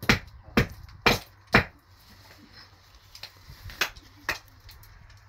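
Sharp knocks from a hand tool striking at a cinder-block wall: four evenly spaced blows about half a second apart, a pause, then two more about four seconds in.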